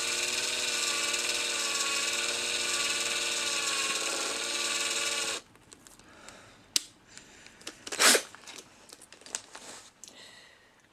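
A small electric drill running steadily at a gentle speed, turning a threaded axle into a tiny model-car wheel rim, then switched off abruptly about five seconds in. Light clicks of handling follow, with one short, sharp noise about eight seconds in.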